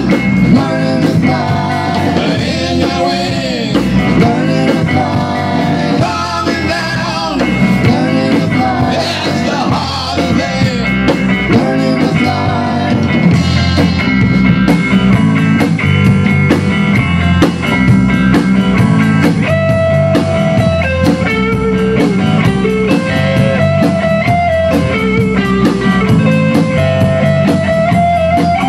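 Rock band playing live: electric guitar, bass guitar and drum kit, with singing in the first half and a guitar lead line of held, stepping notes from about halfway.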